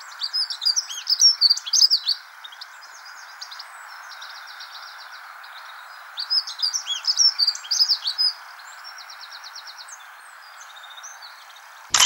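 Dunnock singing: two bursts of fast, high warbling about six seconds apart, each followed by a short run of rapidly repeated notes, over a steady background hiss.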